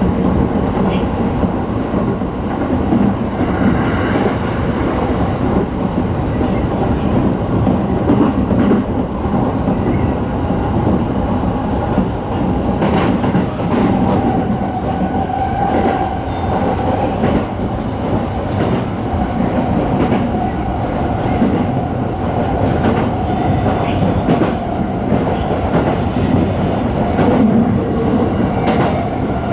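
Sotetsu 10000 series electric train running at speed, heard from the front of the train: steady wheel-and-rail rumble with scattered clicks over rail joints and a faint steady whine.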